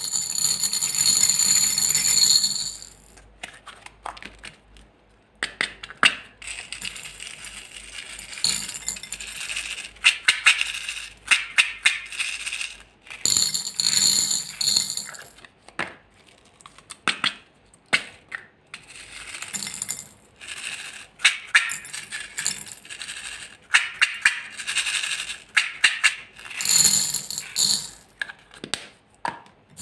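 Small beads poured from a plastic cup into a glass bowl, clattering and clinking on the glass in a series of rattling bursts with short pauses between pours.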